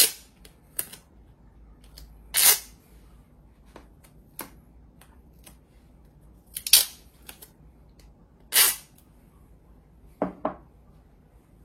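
Adhesive tape being pulled and torn into short strips: several quick rips with small clicks between, and two dull knocks near the end.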